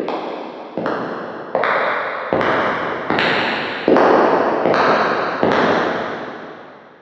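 Footsteps walking at an even pace, about one step every three-quarters of a second, each step with a long echoing tail. They grow louder, stop with a last step about five and a half seconds in, and the echo fades away.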